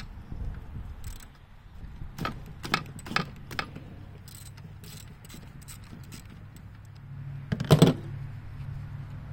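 Metal hand tools and engine parts clinking and clanking during engine disassembly: a few sharp clinks two to four seconds in and a loud clatter near the end, with a low steady hum coming in underneath.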